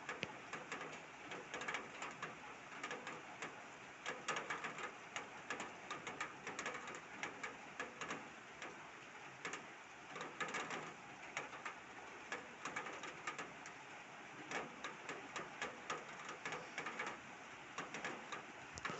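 Downpour rain falling, with many irregular drops tapping and dripping on a hard surface.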